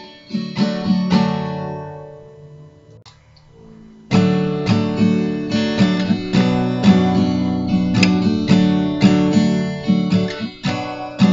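Acoustic guitar playing an instrumental break between sung lines. A chord rings and fades away over the first couple of seconds, then strummed and picked chords start again about four seconds in and carry on steadily.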